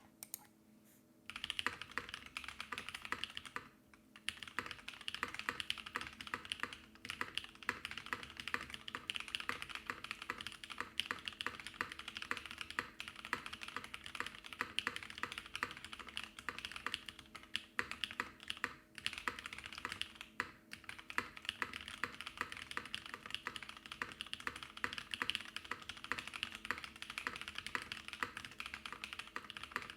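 Fast, continuous typing on a Frog TKL mechanical keyboard with lubed Husky switches, a POM plate and GMK keycaps. Typing starts about a second in, pauses briefly once, then runs on as a dense stream of keystrokes.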